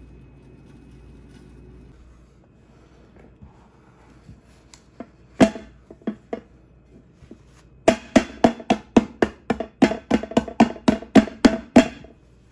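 Hand knocking on the bottom of an upturned metal cooking pot to loosen the macaroni and crispy potato crust onto the plate: a few single knocks, then a rapid run of knocks, about four a second, each ringing briefly.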